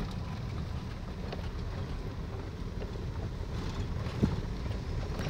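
Steady low rumble of engine and road noise inside a moving car's cabin, with a few faint ticks and one sharp knock about four seconds in.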